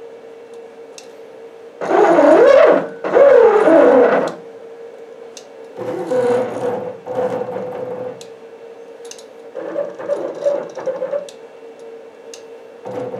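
CNC router's stepper motors jogging the axes in short moves from a handheld pendant, each move a motor whine that rises and falls in pitch. Two louder moves come about two and three seconds in, then three quieter ones, over a steady hum.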